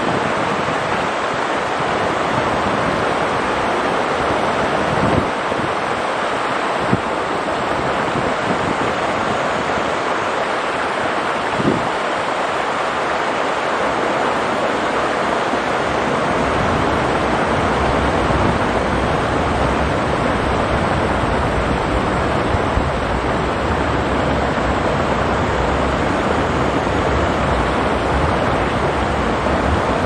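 Mountain stream rushing steadily over rocks, an even hiss, with a low wind rumble on the microphone building up about halfway through and a few faint knocks.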